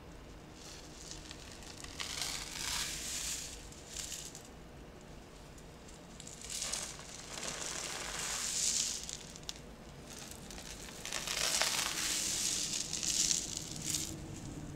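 Makeshift rain stick being tipped, its filling trickling through in a rustling, crackling rush. The rushes swell and fade three times, each lasting one to three seconds.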